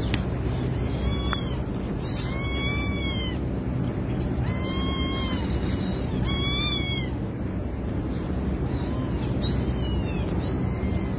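Kitten meowing repeatedly in distress with its head stuck inside a plastic pipe: about six calls, each about a second long, rising and then falling in pitch. A steady low background noise runs underneath.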